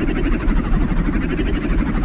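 Synthesized futuristic sound effect: a steady, fast-pulsing electronic drone over a low rumble, its upper tone slowly swelling and fading about every second and a half.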